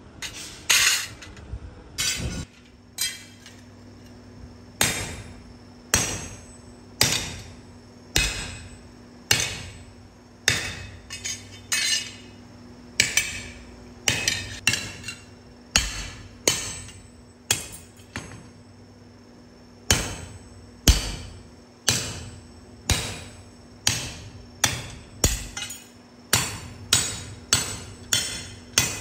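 Hand hammer striking a leaf-spring steel cleaver blank on a steel anvil block: a steady series of ringing metal blows, about one a second.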